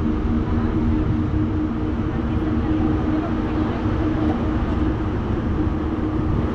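Steady low drone of a boat's engines under way, with wind buffeting the microphone; a hum in several steady tones weakens about halfway through.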